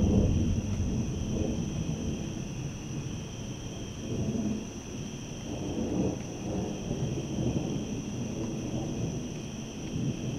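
Thunder rumbling. It is loudest at the start, then rolls on in weaker swells, with a steady high tone in the background.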